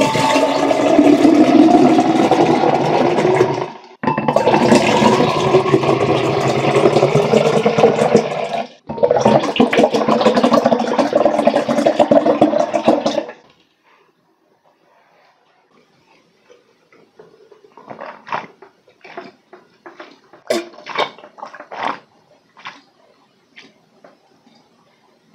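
Honey lemon and pear juice poured from plastic bottles into a tall glass, splashing and glugging, in three long pours with short breaks between, the pitch rising as the glass fills. The pouring stops about halfway; after a short pause comes a series of gulps as the drink is chugged from the glass.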